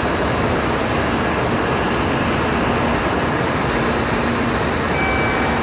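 Steady din on a Shinkansen platform: an even rush of train and station machinery noise with a faint low hum. Near the end a faint high steady tone begins.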